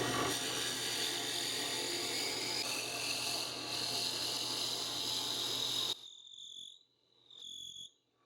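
A drill runs steadily as it bores the handle for the clamp's lead screw, then cuts off suddenly about six seconds in. Two short high-pitched squeals follow about a second apart.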